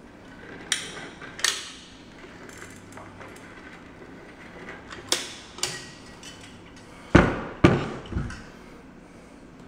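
Manual caulk gun clicking as its trigger is squeezed to push caulk into the joint: a few sharp clicks spread through the first six seconds. Near the end come three louder, deeper knocks.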